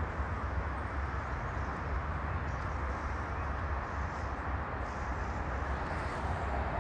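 Steady city ambience: a low, even rumble of distant traffic.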